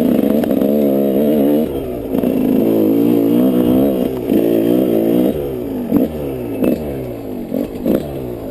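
Yamaha 125 off-road motorcycle engine running under changing throttle, its pitch wavering up and down and dropping back twice. In the second half the revs fall away toward idle, with a few sharp knocks or clatters.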